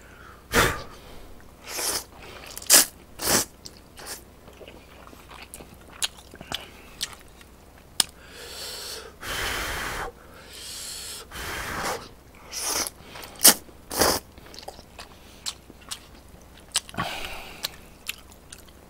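A man slurping and chewing instant ramyeon noodles: many short, sharp slurps and mouth noises, with a couple of longer slurps about nine and eleven seconds in.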